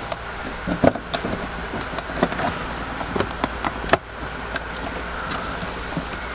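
Small clicks and taps of a RAM stick being handled and pressed down into a motherboard memory slot, over a steady low hum, with one sharper click about four seconds in. The stick takes hard pushing to seat.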